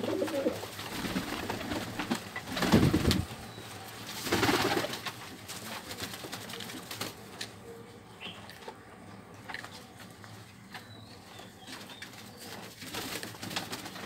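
Domestic pigeons cooing in a small loft, with two loud rushes of wing flapping about three and four and a half seconds in, and scattered small scuffles.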